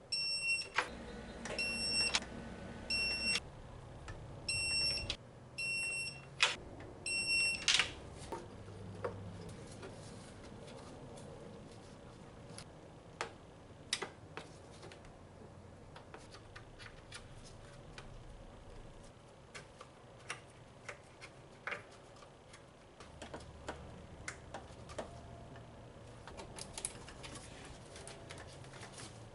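Seven short, high electronic beeps in the first eight seconds, in irregular pairs and singles, followed by scattered sharp clicks and taps.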